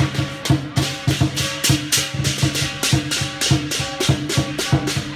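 Lion dance percussion: a Chinese lion drum beating a steady rhythm of about three to four strokes a second, with crashing hand cymbals and a ringing gong.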